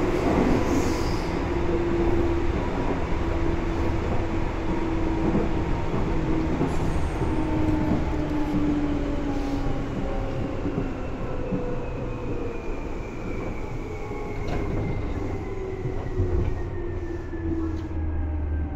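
Seibu 2000 series electric train running, heard from inside the car: a whine from the motors and gears falls slowly in pitch as the train slows, over a steady rumble of wheels on track.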